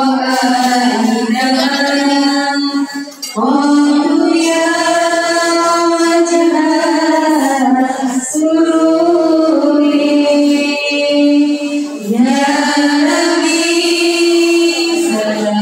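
A woman's voice singing a slow melody in four long held phrases, each a few seconds long, with brief breaks between them.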